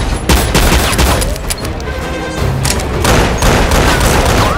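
Rapid gunfire, many shots in quick succession, with a film music score under it.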